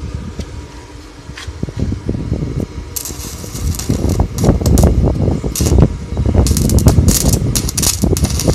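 Stick-welding arc from a Dnipro-M SAB 258D inverter welder burning a rutile electrode. It crackles irregularly, in bursts, from about three seconds in, over a low steady hum. The arc strikes and holds well, a sign the repaired welder works.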